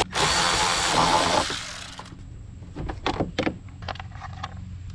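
Power tool whirring for about two seconds with a brief stop and restart at the start, spinning out an 8 mm bolt on the air box cover. A few light clicks and knocks of plastic follow.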